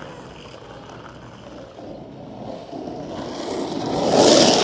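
Skateboard wheels rolling on asphalt, growing steadily louder as the rider approaches, loudest near the end.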